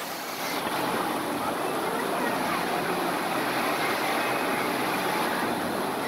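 Steady hiss and patter of water-park spray jets splashing down into a shallow pool.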